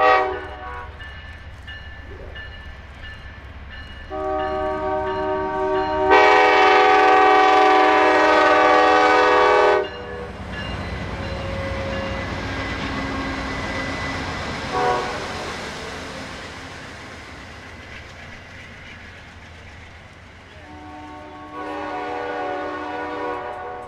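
Amtrak GE diesel locomotive's air horn: a short toot, then a long blast of about six seconds that gets louder partway through. The locomotives and passenger coaches then run past, their wheels clicking over the rail joints, and the horn sounds again, more faintly, near the end.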